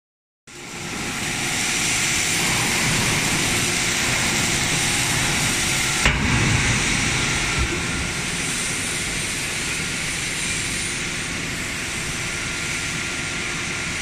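Hydraulic power unit of a 130-ton semi-automatic metal scrap baler running with a steady mechanical hiss and hum while the lid cylinder moves. A sharp clunk about six seconds in is followed by a brief louder surge of low rumble.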